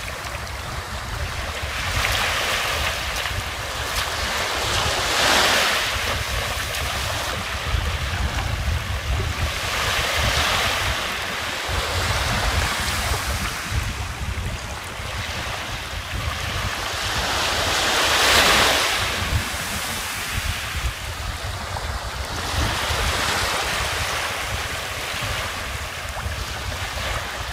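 Small waves washing onto a sandy beach, a swell every four to five seconds, with wind rumbling on the microphone.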